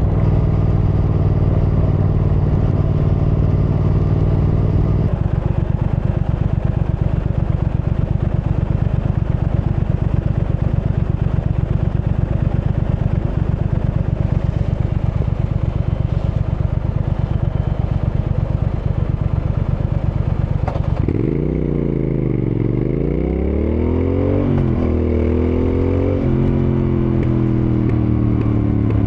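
Triumph Thruxton R's 1200 cc parallel-twin engine heard on the move. It holds a steady note, then settles into a low, even pulsing at low revs for most of the stretch. About two-thirds of the way through, the revs dip and climb hard under acceleration, with further gear changes a few seconds later.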